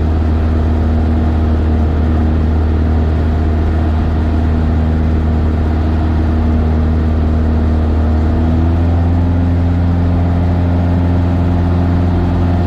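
A Cessna's single piston engine and propeller running steadily in flight, heard from inside the cockpit. The pitch rises slightly about eight seconds in.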